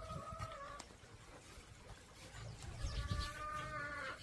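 Pungsan puppies play-fighting: a short high whine at the start and a longer, steadier whine near the end, over soft scuffling thumps.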